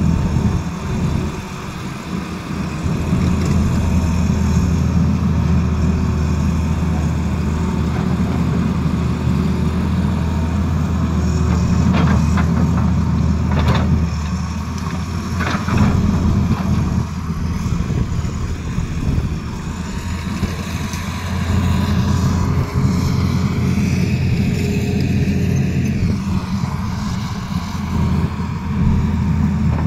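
Tata Hitachi Zaxis tracked excavator's diesel engine running steadily as the machine works. A few sharp knocks come around the middle, as the hydraulic breaker meets the rock.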